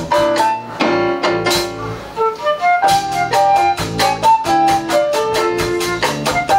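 Live jazz band playing: a flute carries the melody in held and moving notes over keyboard and a drum kit keeping a steady beat.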